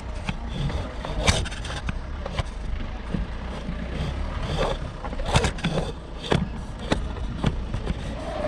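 A vehicle driving over a rough, rocky dirt road: a steady low engine and road rumble, with short knocks and rattles as it jolts over stones and ruts.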